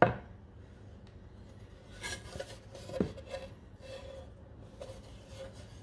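A sanded timber panel from an old wooden toolbox is handled and turned over on a workbench. There is a sharp knock at the start, then rubbing and scraping with a second knock about three seconds in, and fainter scrapes after it.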